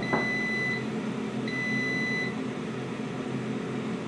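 Xiaomi Mi Smart Air Fryer beeping twice, two long even beeps about a second apart, over the steady hum of the running fryer: the mid-cook reminder to turn over the food.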